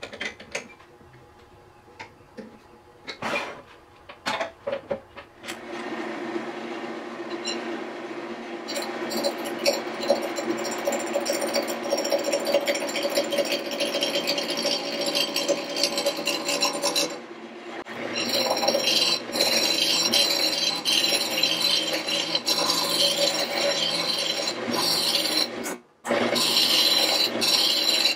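A few clicks and knocks as a square walnut blank is clamped into a wood lathe's chuck. Then the lathe runs while a hand-held turning tool cuts the spinning walnut: a steady hum under a continuous rasping scrape that grows louder and breaks off briefly twice.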